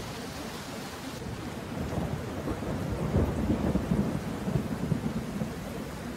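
Steady rushing noise with a low rumble that swells from about two seconds in and dies away shortly before the end.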